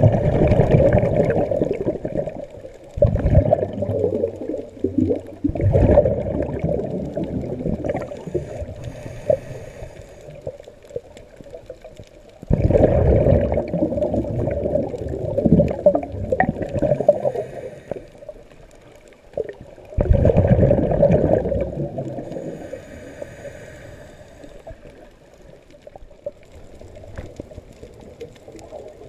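Scuba diver breathing through a regulator, heard underwater: several loud gurgling bursts of exhaled bubbles, each lasting a few seconds and starting suddenly, with quieter stretches between where a faint hiss of inhalation can be heard.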